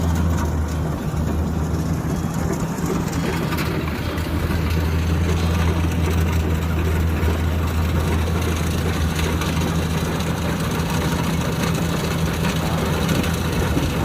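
Kubota DC60 combine harvester's diesel engine running steadily as it harvests, a constant low hum over a broad mechanical noise.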